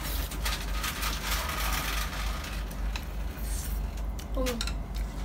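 Instant noodles being slurped and chewed, eaten with chopsticks: a drawn-out hissy slurp over the first few seconds, with small clicks. A steady low hum runs underneath.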